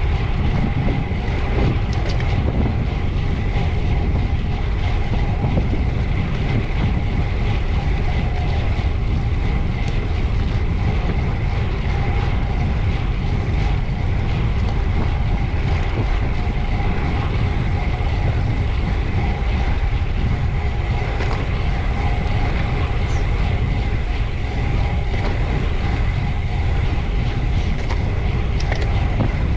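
Steady wind and road noise from a bicycle ridden hard at speed, heavy rumbling buffeting on the microphone, with a faint steady whine running through it.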